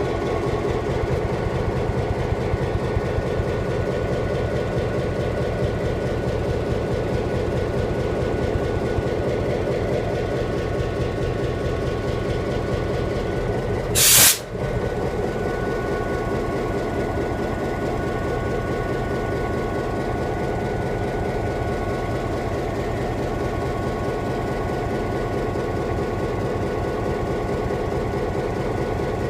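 Train running: a steady rolling rumble with faint steady whistling tones over it, and a brief loud burst of noise about halfway through.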